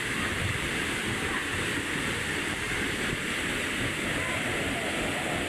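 Waterfall's water rushing in a steady, unbroken noise, with faint voices of people mixed in.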